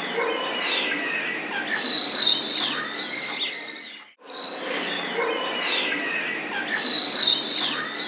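Several songbirds chirping and whistling together, a roughly four-second stretch of birdsong heard twice in a row. Each pass carries a sharp rising whistle about two seconds in, the loudest call.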